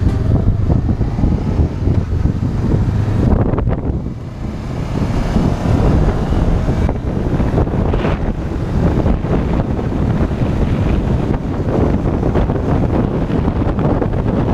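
Wind buffeting the action camera's microphone at riding speed, with the Honda CBF 500's parallel-twin engine underneath. The level drops briefly about four seconds in.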